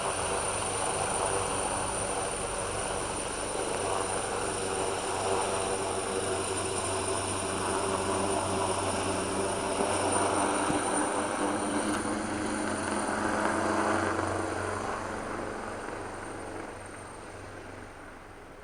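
Helicopter rotor and engine running in a steady thrum that fades away over the last few seconds.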